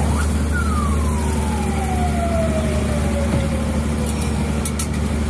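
A steady low motor hum, with one clear tone that rises briefly near the start and then glides slowly downward over about three seconds.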